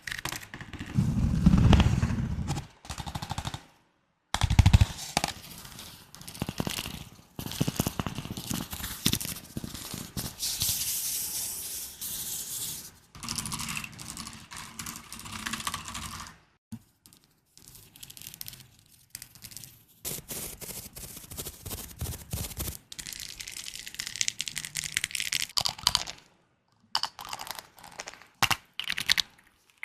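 A run of close-miked ASMR trigger sounds, mostly rapid tapping and crackling on objects, switching to a new sound every few seconds with brief pauses between.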